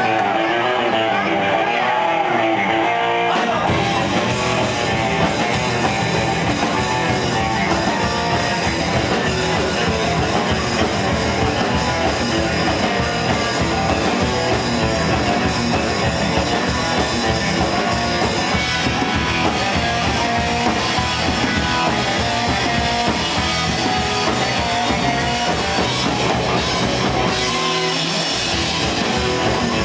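Live rock band of electric guitar, upright double bass and drum kit playing a song. It opens with a thinner, guitar-led part; about three and a half seconds in, the bass and drums come in and the full band plays loud and steady.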